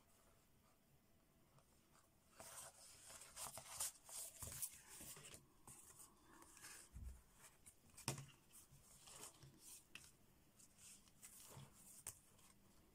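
Faint, intermittent rustling and crinkling of paper as the pages of a handmade paper journal are handled and turned, starting about two seconds in, with a sharper tap or click now and then.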